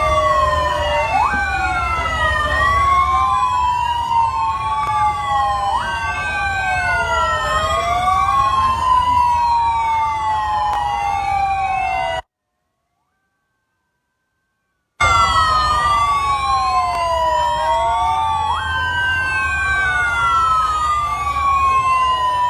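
Several police escort sirens wailing together. One falls slowly in pitch and snaps back up every few seconds, while others sweep up and down faster, over a low rumble. The sound cuts out entirely for about three seconds midway, then resumes.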